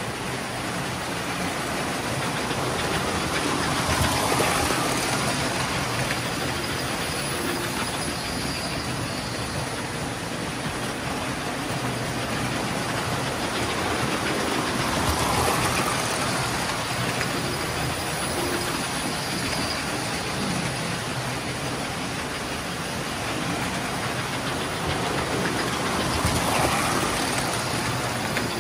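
Several toy electric trains running on the layout's track: a steady whir of motors and rattle of wheels on rails. It swells three times, about every eleven seconds, as a locomotive passes close by.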